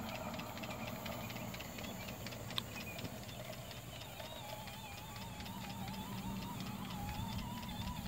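Stuart Williamson model steam engine running on live steam, with a rapid, even ticking from its eccentric rod on the eccentric sheave. A faint wavering whine joins in about halfway through.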